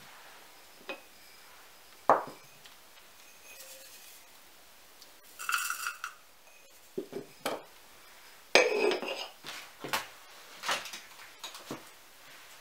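Glass teapot and ceramic tableware clinking and knocking on a table as dried chamomile is put into the teapot: a string of sharp clinks, one briefly ringing a little over five seconds in, and the loudest clatter about eight and a half seconds in.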